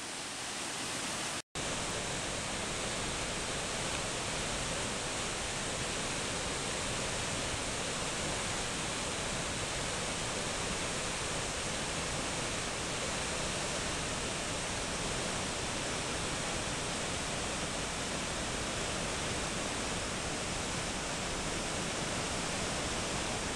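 Steady roar of the flood-swollen Housatonic River rushing over its falls and dam, an even rushing noise with one split-second dropout about a second and a half in.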